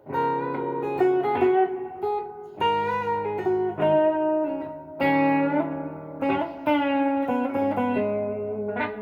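Gibson SG Special electric guitar on the neck pickup, tuned down to E-flat, playing slow blues lead phrases through a Fender Blues Junior IV valve amp with reverb and delay. Single picked notes and short runs ring out and decay, some of them bent, over steady low sustained notes.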